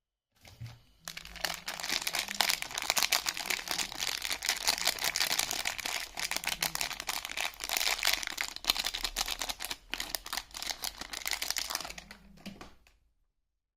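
Soap packaging wrapper crinkling and crumpling in the hands as a bar is unwrapped. It is a dense run of crackles that starts about a second in and stops shortly before the end.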